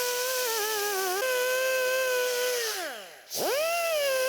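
Power drill with a brush attachment running in a steady whine, its pitch wavering under load as it cleans the brake pad contact surfaces. About three seconds in it winds down almost to a stop, then spins straight back up.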